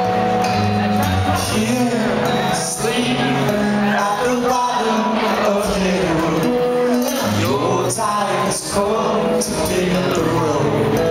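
Live band playing acoustic: steel-string acoustic guitars and drums with a male voice singing, recorded from within the audience.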